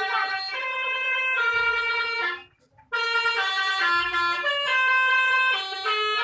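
Telolet bus horn playing a tune of stepped, horn-like notes, with a brief break about two and a half seconds in.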